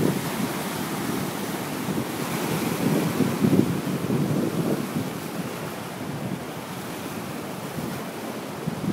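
Ocean surf washing in, with wind rumbling on the microphone, swelling about three seconds in.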